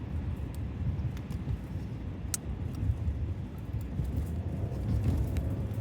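Steady low rumble of a car's cabin, with scattered small clicks from a plastic container being handled and pried at while someone tries to open it; the sharpest click comes about two seconds in.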